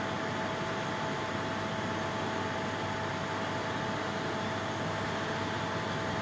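Fiber laser metal-cutting machine running: a steady hiss with two faint steady tones over it.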